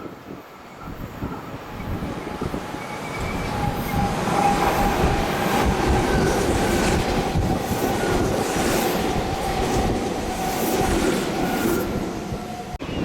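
Meitetsu electric train running through a station without stopping, its wheels rumbling on the rails with a steady whining tone above. The sound builds about a second in, holds loud through the middle and eases near the end.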